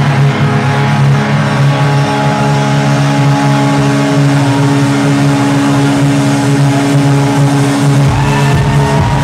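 Loud techno over a club sound system: held, droning synth tones with no deep bass, until deep bass comes back in about eight seconds in.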